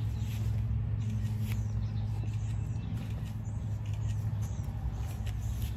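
A steady low motor hum, with faint bird chirps above it.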